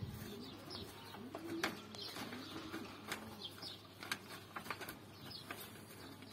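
Domestic pigeons cooing softly, a low rolling call repeated several times, with short high chirps and light ticks scattered throughout.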